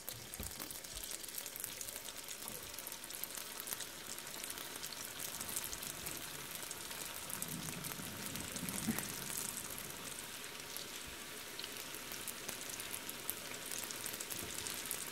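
Spring rolls deep-frying in hot oil, a steady sizzle full of fine crackles.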